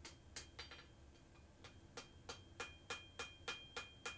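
Hammer blows on a hot leaf-spring steel bar on a small rail-track anvil, squaring the shoulder and blade of a cut-off hardie. A few strikes come first, then from about two seconds in a steady run of about three strikes a second, each leaving a high ring.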